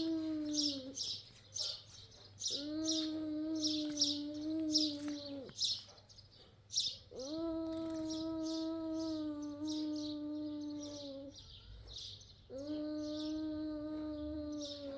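A voice humming four long, level notes, each held for three or four seconds with short pauses between, while small birds chirp steadily.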